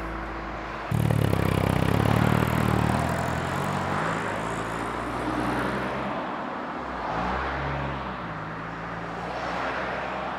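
Car engines and road traffic. A loud engine hum cuts in suddenly about a second in, then cars drive on the road, and an engine note rises and falls about seven seconds in.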